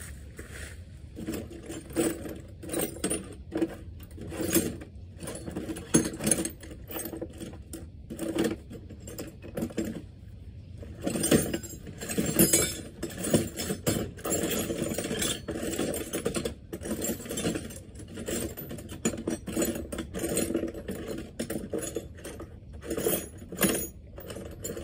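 Hand tools clinking and clattering as they are rummaged through in a metal toolbox, with scattered clinks at first and a busier run of rattling from about halfway through.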